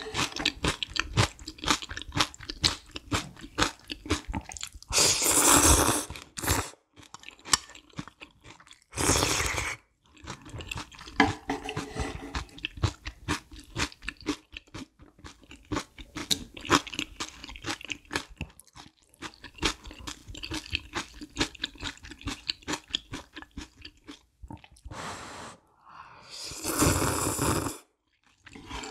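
Close-miked eating of spicy noodle soup: steady chewing with many rapid wet mouth clicks, broken by four loud slurps, the longest about five seconds in and near the end.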